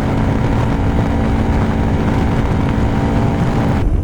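Motorcycle engine running steadily while riding, with loud wind rush on a microphone inside the helmet. The steady engine drone and the wind rush stop abruptly near the end.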